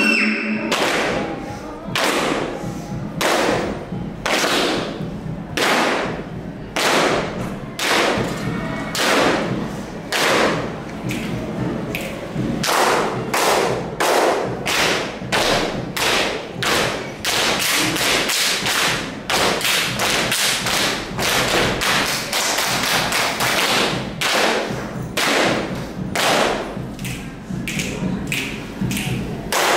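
A ratoh jaroe dance group's body percussion: many hands slapping chests and thighs and clapping together in unison, in sharp rhythmic strokes that come thicker and faster in the middle. The sung accompaniment stops just as it begins.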